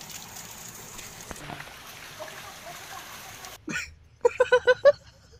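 Steady rushing noise of an outdoor stream. Near the end a high voice gives one short sound, then a quick run of five or six short, high-pitched syllables.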